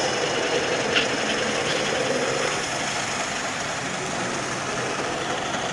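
Sound decoder in an H0-scale Y6 railbus model playing its diesel engine idling, a steady hum, with a single click about a second in.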